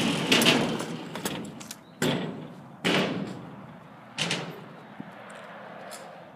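Kick scooter dropping into a skatepark ramp: a loud clack as it lands on the ramp, then the rumble of small hard wheels rolling on concrete, with three more sharp clacks about a second apart that grow fainter.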